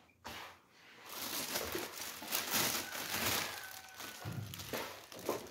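Thin clear plastic bag crinkling and rustling as it is handled, starting about a second in.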